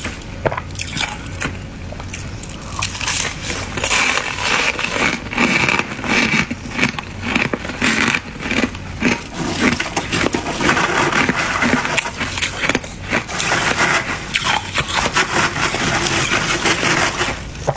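Thick freezer frost being scraped and crushed: a continuous run of crunchy, crackling scrapes.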